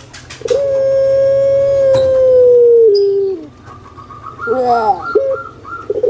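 Puter pelung (Barbary dove, Streptopelia risoria) cooing: one long drawn-out steady note of about three seconds that sags slightly in pitch at its end, then a quick rolling, falling gurgle and a short note, with the next long note starting at the very end.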